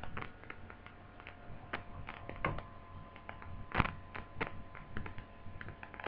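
Small, irregular clicks and taps of plastic laptop parts being handled and fitted back together during reassembly, the loudest about four seconds in.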